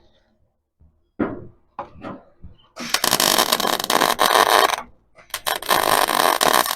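Welder tack-welding the new steel tail panel to the car body: a couple of seconds of loud, even arc crackle that starts and stops abruptly, then a short burst and another run of welding near the end. A few light clanks of handling come first.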